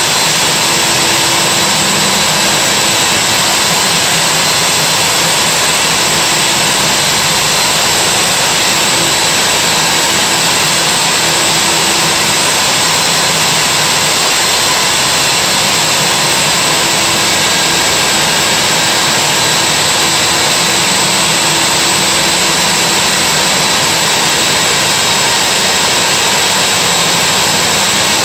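Milwaukee core drill running steadily as the bit cuts into a concrete wall: a constant motor whine over an even rushing noise, with no change in speed.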